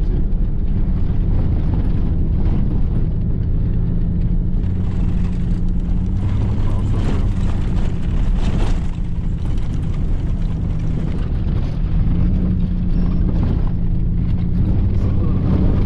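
Truck engine running steadily with tyre and road noise from a sandy dirt road, heard from inside the cab.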